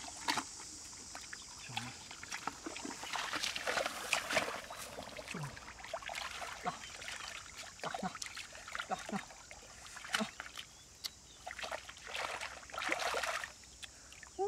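Hands squelching and splashing through thick mud and shallow muddy water while groping for catfish, with short wet slaps and two longer bouts of sloshing, about three seconds in and again near the end.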